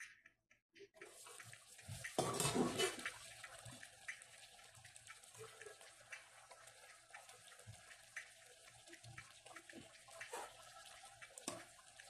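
Mutton curry sizzling and bubbling in a frying pan, the hiss starting about a second in as the lid comes off and loudest for a moment around two seconds in. A metal spoon clinks and scrapes against the pan as the curry is stirred.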